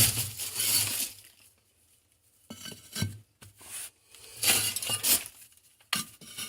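Bricks and masonry tools scraping and clinking in four short bouts with quiet gaps between.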